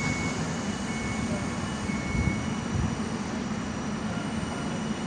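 Train running in a station: a steady rumble and hiss, with a few short, faint high-pitched squeaks coming and going.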